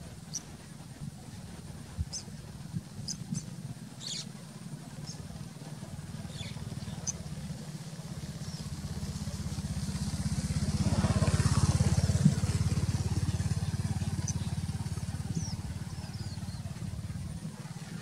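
An engine passing by: a low motor drone builds to its loudest about two-thirds of the way through and then fades. Short high bird chirps sound now and then over it.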